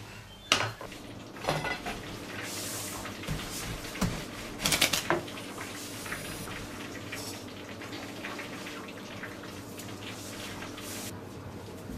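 Kitchen work sounds: utensils and dishes knocking and clinking several times in the first few seconds, with a couple of short rushes of noise, over a steady low hum.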